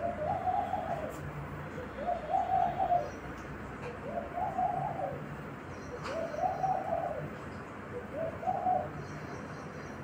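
A dove cooing: five long, arched coos, one about every two seconds, with faint high chirps of small birds behind.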